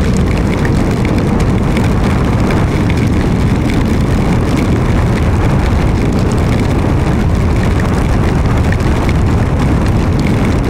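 Steady rush of wind and wet-road noise from a BMW G310GS motorcycle riding at speed through heavy rain, with the wind hitting the bike-mounted microphone.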